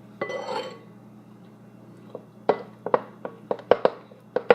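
A spoon knocking against a bowl or container while scooping baking soda: a run of sharp clinks and taps, about three or four a second, starting about halfway through.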